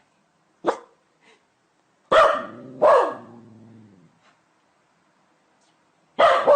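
A dog barking: a short bark, then two barks in quick succession a couple of seconds in, a pause of about three seconds, and another bark near the end. Each of the longer barks trails off in a fading tone.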